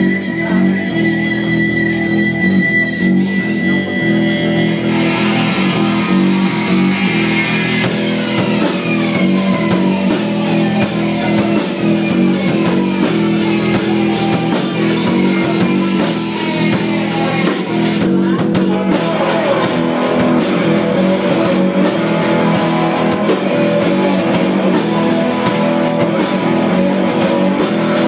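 Live rock band playing the instrumental intro of a song: electric guitars and bass guitar, with the drum kit coming in about eight seconds in on a steady beat.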